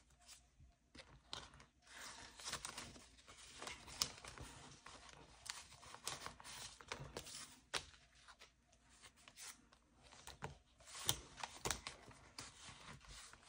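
Faint rustling and crinkling of cash envelopes and paper bills being handled, with scattered soft taps and clicks, as bills are worked into a stubborn envelope.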